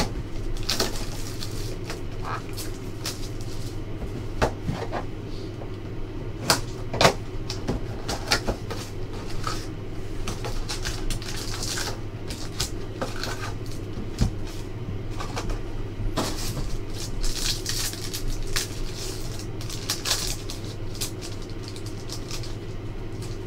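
Cardboard trading-card box handled and packs pulled out of it, with scattered taps and clicks, then a foil card pack torn open and crinkled in the later seconds, over a steady low hum.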